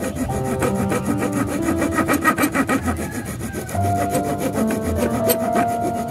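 Hacksaw blade, held in the hand without a frame, sawing back and forth across a wooden branch clamped in a bench vise, the teeth rubbing through the wood stroke after stroke.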